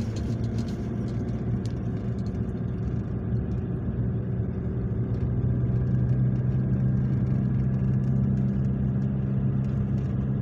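Car engine running steadily under way, heard from inside the cabin, with road noise from the tyres on wet asphalt. The engine hum grows a little stronger about halfway through.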